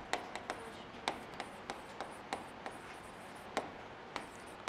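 Chalk writing on a chalkboard: a faint, irregular run of short, sharp taps and light scratches, about three a second, as words are written.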